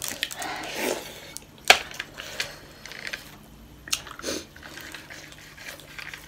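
Close-up eating sounds: chewing and small mouth noises with scattered light clicks, two sharper clicks just under two and about four seconds in.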